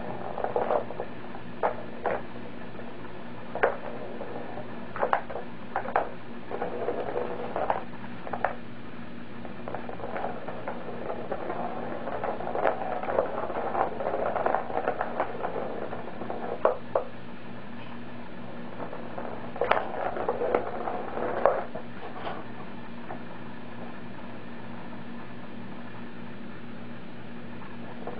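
Kittens batting a ball around a plastic circular track toy: the ball rattles as it rolls, with scattered sharp clicks and knocks from paws on the plastic. The rattling comes in denser runs about halfway through and again a few seconds later. A low steady hum runs underneath.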